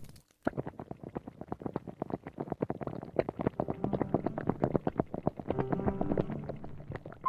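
Large wok of fish-paste strips boiling hard: a dense, irregular bubbling and popping.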